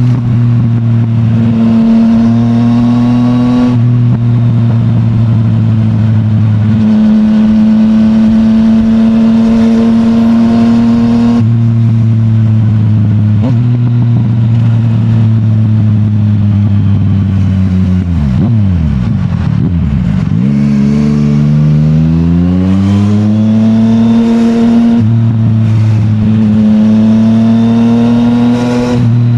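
Yamaha MT-09's CP3 three-cylinder engine running through an Akrapovic full titanium exhaust, held at a steady cruise with small shifts in pitch. About eighteen seconds in, the engine note falls away as the bike slows, then rises steadily for several seconds as it pulls away again.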